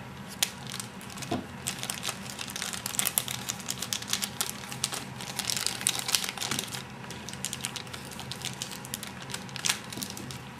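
Thin plastic wrapping crinkling and crackling as it is peeled off a puzzle cube, with many small irregular clicks and taps from handling, busiest in the middle.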